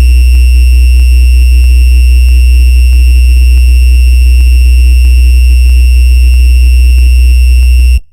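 A loud, steady electronic buzz: a strong low hum with a thin high whine above it, held without change and cutting off abruptly near the end.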